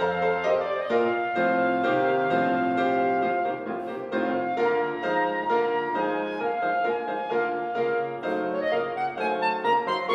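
Soprano saxophone and Steinway grand piano playing lively classical music, with the saxophone running through quick short notes over piano chords.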